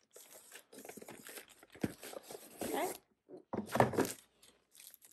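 Cardboard and plastic wrap rustling and scraping as a shrink-wrapped binder is slid out of its cardboard box and handled, in irregular bursts with the loudest crinkles a little before the end.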